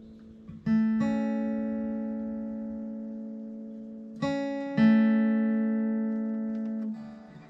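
Acoustic guitar chords strummed and left to ring, two chord changes about three and a half seconds apart, each dying away slowly before being muted near the end.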